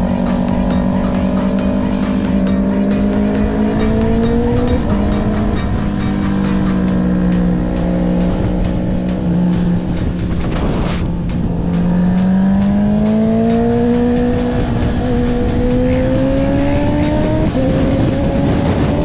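Honda CB650R inline-four with an Akrapovic exhaust accelerating hard under the rider. The engine note climbs and then drops sharply with each quickshifter upshift, about five seconds in and again near the end, over steady wind rush. The pitch sags for a few seconds around the middle.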